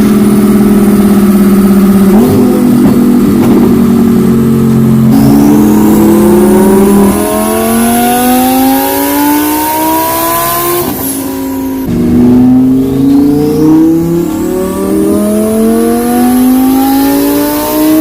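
Twin-turbocharged Lamborghini Huracán 5.2 L V10 running hard on a dyno. It holds a steady note for about seven seconds, then climbs in pitch for several seconds with a rising turbo whistle above it. Near eleven seconds the pitch drops sharply with a quick sharp burst, then it climbs again with the whistle rising once more.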